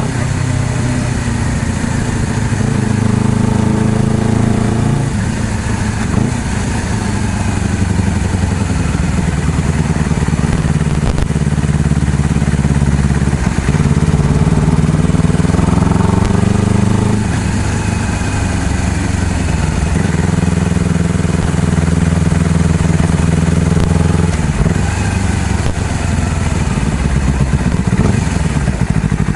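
Honda CBR250RR motorcycle engine running under way, its pitch climbing and dropping several times as the rider accelerates and changes gear.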